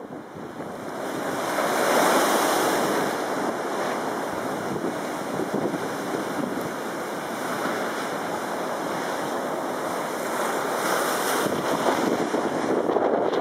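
Storm surf breaking against a concrete sea wall and washing across the promenade, with wind buffeting the microphone. The roar of the surf swells about two seconds in and again after about ten seconds.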